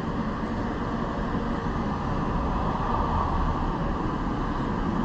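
Steady low rumble of city background noise, mostly distant traffic.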